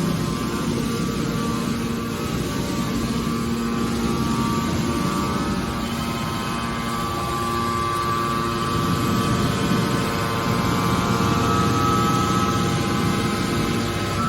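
Hydraulic scrap-metal baler running: a steady mechanical drone with a whine over it, growing somewhat louder past the middle.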